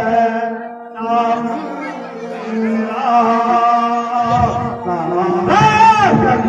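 A man singing in a chanting style, with steady sustained notes from a harmonium beneath the voice. The voice dips out briefly just before the first second.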